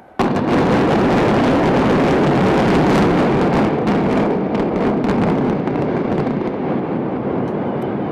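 Explosive demolition of high-rise apartment blocks: the charges go off with a sudden blast, followed by a long rumble of the buildings collapsing, with a spell of sharp crackling in the middle, slowly dying away.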